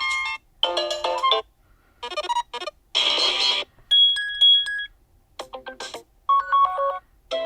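HOTWAV Pad 8 tablet playing its ringtones one after another as short previews: six or seven brief snippets, each a different melody or tone and each cut off after under a second, with short silent gaps between them.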